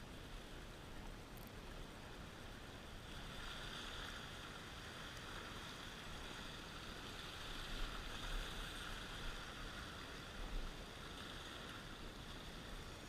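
Steady sea wash off the ocean rocks, with a brighter hiss from about three seconds in that eases near the end, and low wind buffeting on the microphone.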